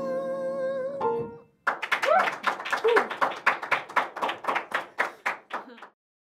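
A man's sung note, held with vibrato over sustained piano chords, ends about a second in. Then a small group claps for about four seconds, with a couple of short whoops, and the sound cuts off just before the end.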